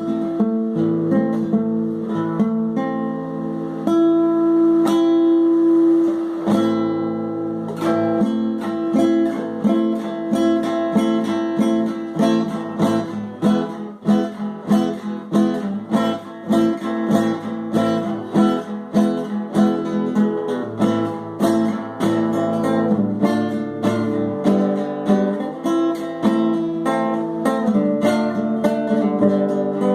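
Acoustic guitar music, plucked and strummed: chords ring out for the first several seconds, then quicker picked notes follow from about eight seconds in.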